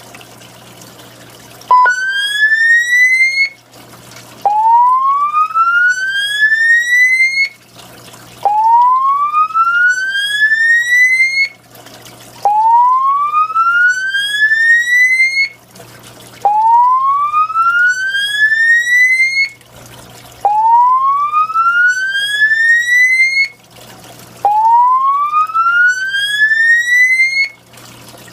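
Mircom voice-evacuation fire alarm speakers sounding the slow whoop evacuation tone. It starts about two seconds in, and each whoop is a rising sweep lasting about three seconds, followed by a short pause, over and over.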